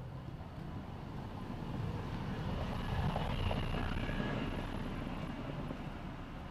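A motor vehicle passing close by: a low rumble that swells to its loudest about three seconds in and then fades away.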